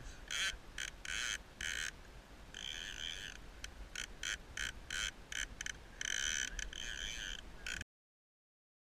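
Fly reel's ratchet buzzing in repeated bursts of varying length while a hooked salmon is played on the rod, over the low rush of the river. The sound cuts out completely near the end.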